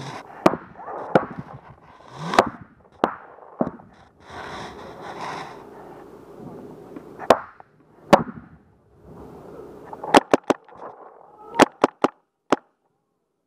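Paintball markers firing, sharp pops in scattered single shots and then quicker bunches of two or three shots near the end.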